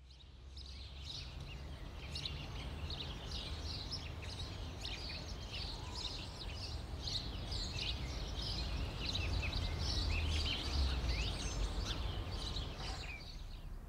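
Outdoor ambience of several birds chirping in many short calls over a steady low rumble; the birdsong stops near the end.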